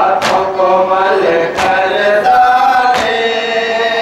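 Male voices chanting a Shia noha (lament) as a sung melody, kept in time by sharp matam strikes, hands beaten on the chest. Three strikes fall about every second and a half.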